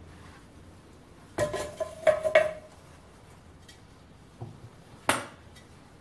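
Tin-can crucible and steel pliers clanking against steel after pouring molten aluminium. There is a clank about a second and a half in, then a second clank with a short metallic ring just after 2 s, and a sharp single clank near the end.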